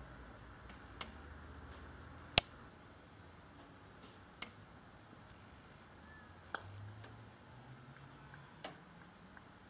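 A handful of sharp clicks, one to two seconds apart, the loudest about two and a half seconds in.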